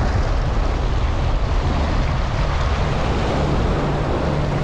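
Steady wind rushing over the microphone, mixed with the wash of sea waves.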